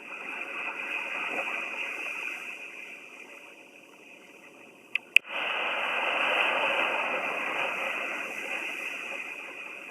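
Sea waves washing in: a rush of noise that swells and fades away. About five seconds in come two sharp clicks, then a louder wash starts suddenly and slowly dies down.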